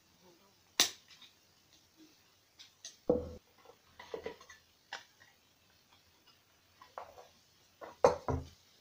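Hand tools and small plastic parts handled and set down on a wooden workbench: scattered clicks and knocks, the sharpest a click about a second in, a heavier knock about three seconds in, and a cluster of knocks near the end as the metal shears are moved.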